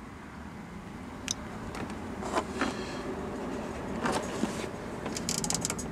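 A few faint, short clicks and handling noises, about a second or more apart, from an iPod being handled, over a steady low background noise.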